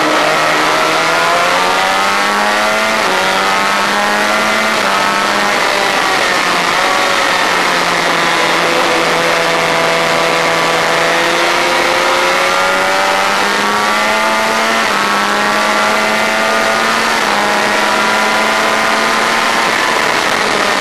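Onboard sound of a Honda VFR400's V4 engine at high revs under race throttle. The pitch climbs and drops back at each of several upshifts, over steady wind rush on the microphone.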